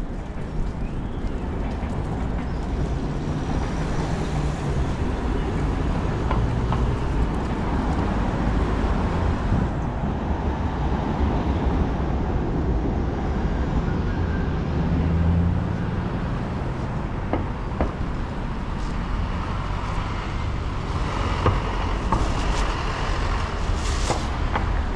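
Street traffic: cars driving past with a steady low rumble, one engine swelling louder about fifteen seconds in.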